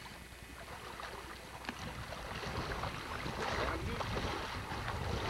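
Water sloshing and splashing around people standing waist-deep in a lake, growing louder about two seconds in.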